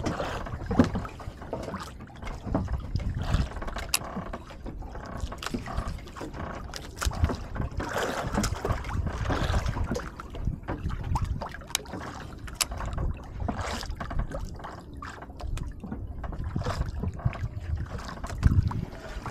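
Sea water lapping and sloshing against the hull of a small outrigger boat, with scattered light clicks.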